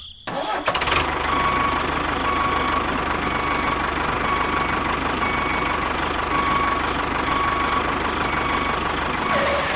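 A small engine or motor running steadily at idle, with a faint tone that pulses on and off about once a second.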